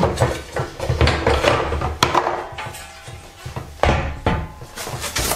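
Several separate knocks and clatters of grill-stand parts being picked up, handled and set down, the sharpest about two and four seconds in.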